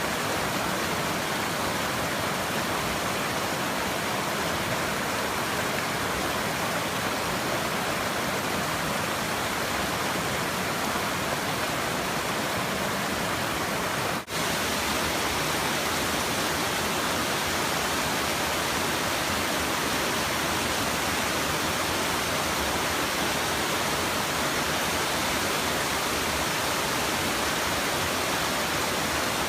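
Steady rush of water from a small waterfall, with one momentary dip about halfway through.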